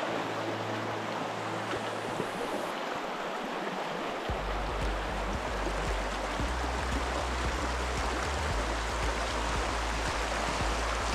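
Shallow, rocky stream rushing and burbling over stones, a steady watery hiss. A low rumble joins about four seconds in.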